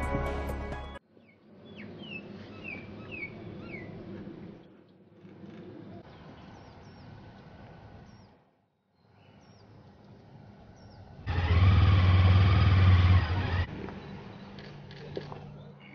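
Intro music cuts off about a second in. Then comes quiet outdoor street ambience with a few short bird chirps, and later a vehicle engine running loud and close for about two seconds.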